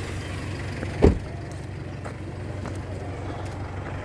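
A vehicle engine idling with a steady low hum, and a single sharp thump about a second in.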